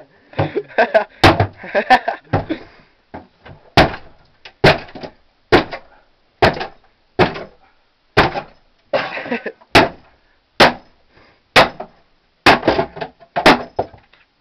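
A wooden cabinet being smashed: a run of about fifteen heavy blows, roughly one a second, as its wooden top splits and caves in.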